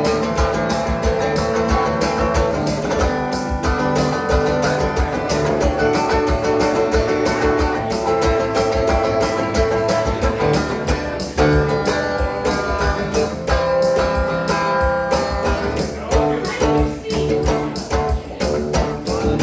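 Instrumental passage of a live country-rock song: guitar playing over a steady beat.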